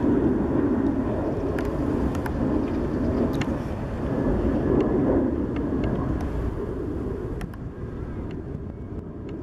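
Airbus A330 twin-engine jet airliner climbing overhead: a steady low jet roar that fades gradually over the last few seconds.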